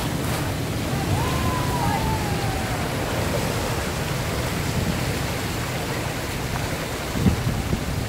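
Heavy ocean surf surging and breaking among coastal rocks: a steady rush of churning white water, with a louder thump about seven seconds in.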